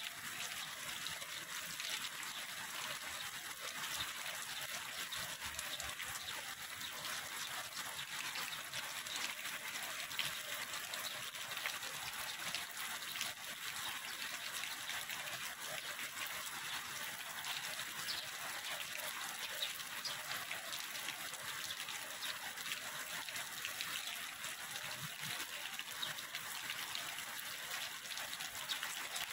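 Heavy tropical rain falling steadily: a dense, even hiss of countless drops.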